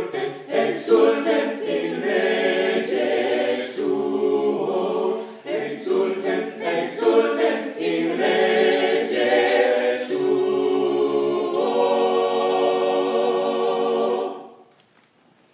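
Small mixed choir singing a cappella, ending on a long held chord that cuts off about a second before the end.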